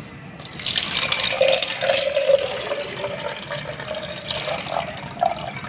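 Water poured from a jug into a glass jar, the stream splashing in about half a second in; the pitch of the filling jar rises slowly as the water level climbs.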